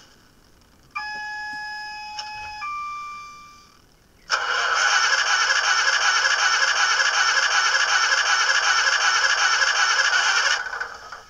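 Bachmann OO gauge Class 150 DCC sound decoder playing a failed diesel engine start through the model's small speaker. It opens with a short steady tone that steps up in pitch, then about six seconds of loud, rapidly pulsing starter cranking that cuts off without the engine catching.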